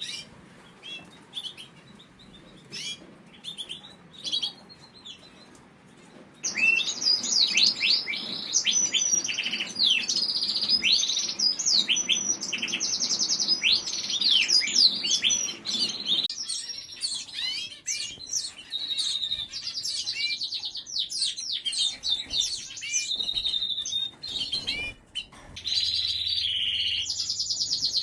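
Canaries chirping and calling: a few scattered high chirps, then from about six seconds in a dense, continuous run of quick high chirps.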